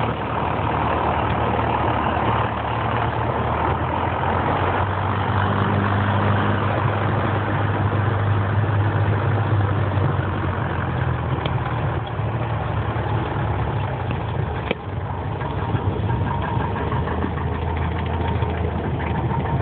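Light aircraft's piston engine and propeller droning steadily, heard from inside the cockpit.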